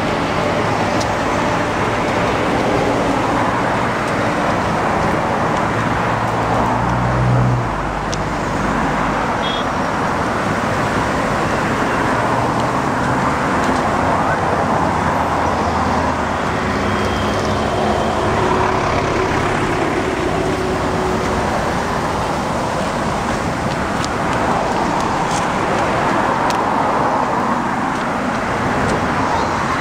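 Steady road traffic passing close by: car and bus engines and tyre noise, with a heavier engine loudest about seven seconds in.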